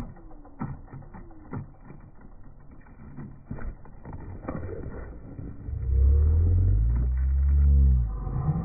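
Several sharp knocks and clatters of a skateboard on asphalt, then a loud low rumble lasting about two seconds near the end.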